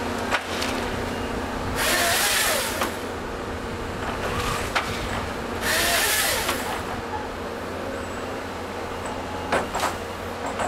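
Volvo EC210 excavator's diesel engine and hydraulics running steadily as the LogMax 7000XT harvester head processes eucalyptus, with two loud hissing bursts of about a second each, about two seconds in and again about six seconds in, as the head's saw cuts through the stem. Sharp knocks of wood and steel come between the cuts and twice close together near the end.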